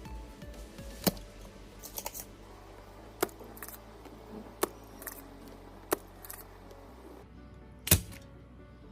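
Sharp, scattered clicks and small knocks of mechanical keyboard parts being handled and fitted, about ten of them with the loudest near the end, over background music.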